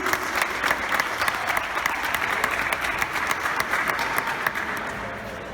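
Crowd of spectators applauding, many hands clapping at once, thinning out near the end.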